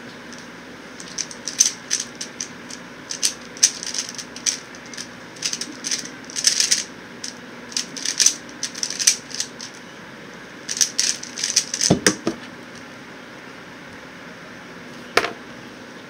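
QiYi X-Man Tornado V1 speedcube being turned fast through a timed solve: rapid bursts of plastic clicking as the layers snap round, with a brief lull about two-thirds through. Near the end of the turning comes a knock as the solve ends, and a single knock follows a few seconds later, over the steady hum of an electric fan.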